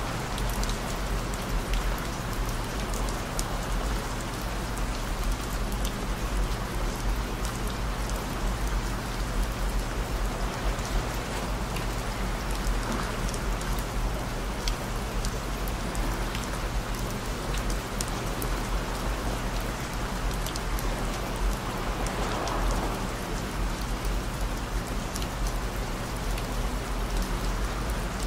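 Steady rain with scattered sharp drop ticks, layered over a constant low hum of pure tones near 55 Hz, 117 Hz and 221 Hz.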